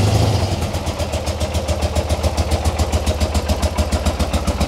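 1990 BMW R100 GS Paris Dakar's air-cooled flat-twin boxer engine running. About half a second in the revs drop and it settles into a slow, lumpy idle with an even beat, which the owner suspects is the bike running low on fuel.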